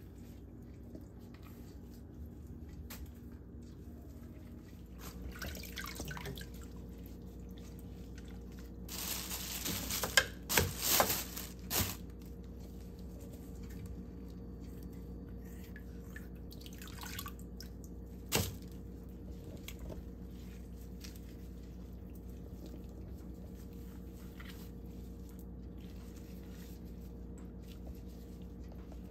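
Water dripping and splashing in a kitchen sink as chitterlings are cleaned by hand, with a louder run of splashes about ten seconds in and a single sharp knock a few seconds later, over a steady low hum.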